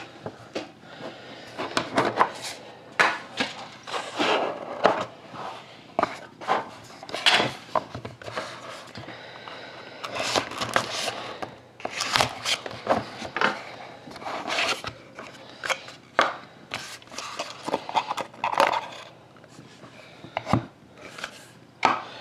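Handling a sealed hockey card box: lid and box parts scraping and tapping, a knife slitting the seal sticker on the inner box, and the cards being slid out. The sounds are irregular scrapes, taps and rustles with short pauses between them.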